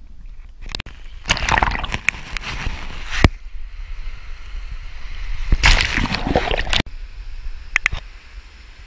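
Seawater sloshing and splashing in two loud stretches, one of about two seconds starting a second in and a shorter one at about six seconds, each cutting off abruptly.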